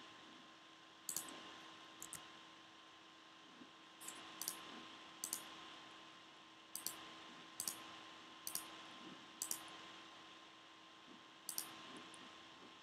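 Computer mouse button clicks, about a dozen at uneven intervals, many in quick pairs. Under them is a faint steady electrical hum and hiss.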